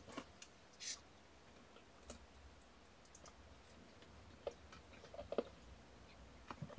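Faint scattered clicks and soft rustles from young kittens crawling and nuzzling on a fleece blanket, with a sharper click about five seconds in.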